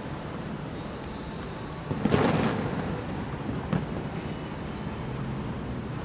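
Distant fireworks booming: one boom about two seconds in that dies away over about half a second, then a sharper, fainter pop a couple of seconds later.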